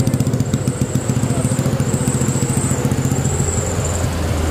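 Motor vehicle engine running close by with a fast, even pulse; about three seconds in its note drops lower.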